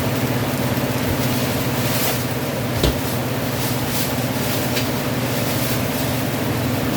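Green peppers and mushrooms sizzling in a frying pan, an even crackling hiss over a steady low hum, with one sharp click about three seconds in.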